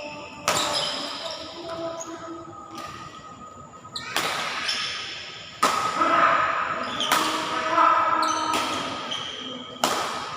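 Badminton rackets striking a shuttlecock in a rally, a sharp hit roughly every one and a half seconds with a short echo after each, and voices in between.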